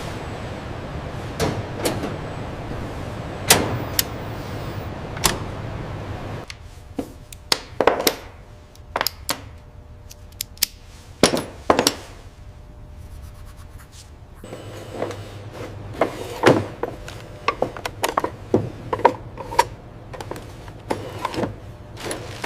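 Irregular metallic clicks and knocks of hand tools and metal parts being handled, over a steady workshop hum that drops quieter for several seconds in the middle.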